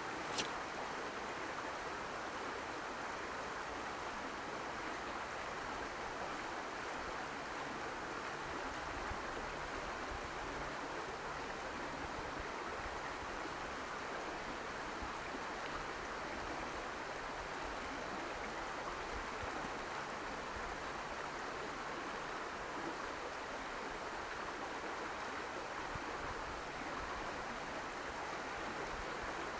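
Steady rain, an even hiss, with one sharp tick about half a second in.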